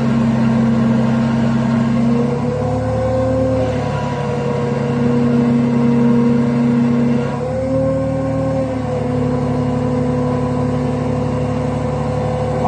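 Telescopic-boom crane's diesel engine running under load while hoisting a heavy jaw crusher, the engine note stepping up and down a few times as the operator works the lift.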